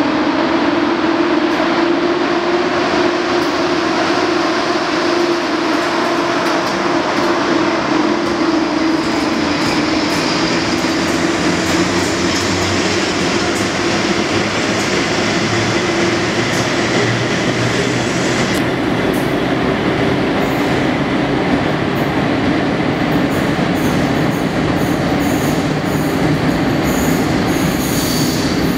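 Four coupled Polish electric locomotives (EP07, EU07 and two EP09) pull out and pass: a steady electric hum and the rumble of wheels on rails throughout. In the last third come high wheel squeal and sharp clicks. The sound echoes in the enclosed underground station.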